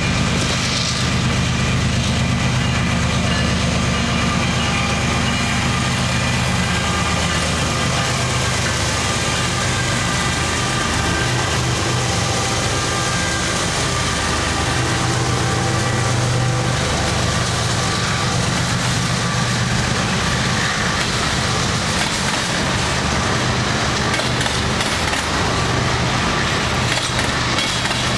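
Freight train passing close by: the GE diesel locomotives (an AC4400CW leading, an ES44AC trailing) running with a steady low hum, then freight cars rolling past on the rails.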